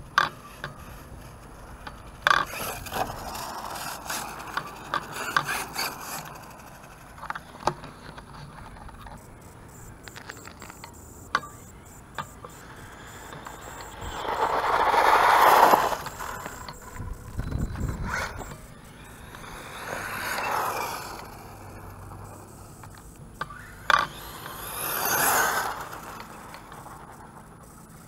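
Redcat Terremoto 10 brushless RC monster truck running on a 3S battery over gravelly asphalt. Scattered clicks and scrapes come first, then it swells in three times as it speeds by, at about 15, 20 and 25 seconds, the first the loudest, with a faint motor whine rising and falling near the second pass.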